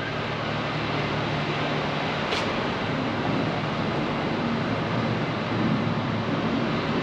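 Steady city street noise, mostly traffic, with a low hum that fades out about two seconds in and a single sharp click a moment later.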